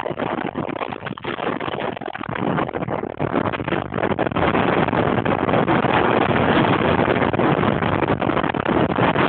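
Wind rushing over the microphone with rolling road noise during a fast downhill descent, growing louder about four seconds in as speed builds.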